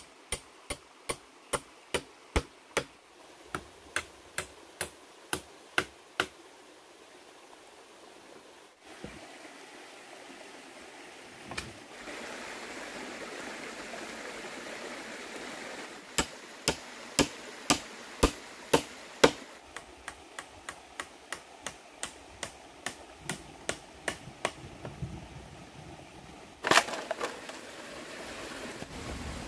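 Chopping: runs of sharp, evenly spaced blade strikes, two to three a second, with a pause between runs and one louder strike near the end, over a steady rush of flowing water.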